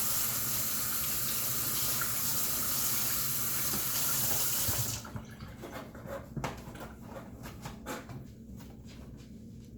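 Tap water running steadily into a sink as the coffee maker's small plastic K-Cup tray is rinsed; the tap shuts off suddenly about halfway through, followed by light clicks and knocks of the tray being handled.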